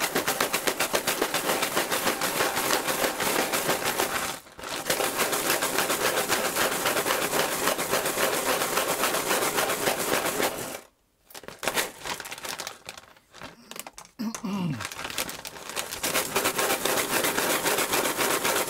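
Blue Alps switch stems rattling in a Ziploc bag as it is shaken hard, a dense, fast plastic clatter with bag crinkle: the stems are being coated in a thin film of lube. The shaking breaks off briefly about four and a half seconds in, stops near eleven seconds and comes in fits for a few seconds, with a short falling squeak, then picks up again.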